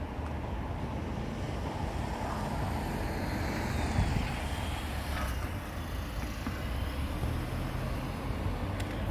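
Steady low rumble of road traffic, with a car driving past near the end.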